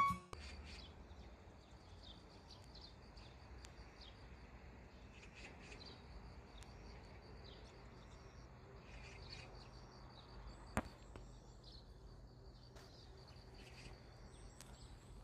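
Faint outdoor ambience with scattered short, high bird chirps over a faint steady low hum, and one sharp click about eleven seconds in.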